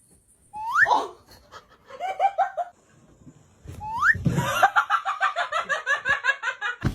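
High-pitched laughter in two bouts. Each bout opens with a rising squeal and breaks into rapid, rhythmic ha-ha pulses. The second bout is longer and louder, at about five pulses a second.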